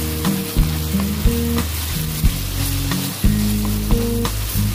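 Chicken pieces and chopped onion sizzling as they fry in oil in a pan, stirred with sharp scrapes and clacks against the pan every half second or so.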